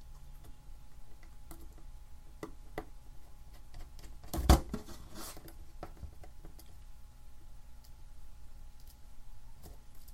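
Small clicks and taps of hands and a small screwdriver working on a laptop screen's metal brackets and plastic lid frame, with one sharp, louder knock about four and a half seconds in.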